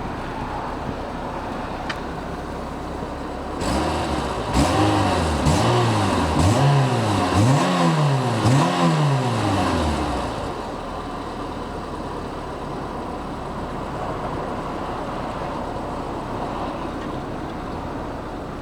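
Renault Clio RS 2.0's four-cylinder engine, a freshly replaced engine assembly, idling steadily, then blipped about six times in quick succession, each rev rising and falling about a second apart, before settling back to idle.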